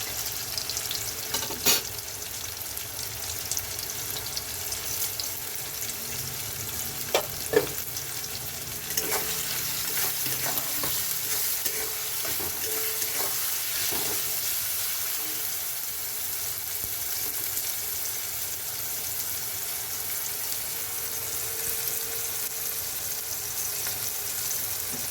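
Chopped onions and garlic sizzling in hot oil in a pan as they soften, stirred with a few sharp knocks of the spoon against the pan; the sizzle grows a little louder about nine seconds in.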